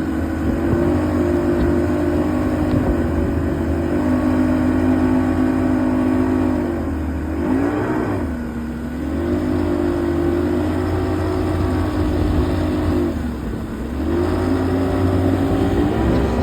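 An engine running at a steady speed, with its pitch easing off and picking back up twice, about halfway through and again near the end.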